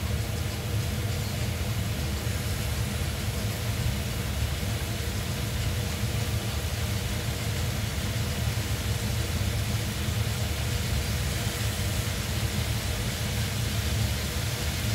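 Sausages frying in a pan, a steady hiss, over a steady low mechanical hum.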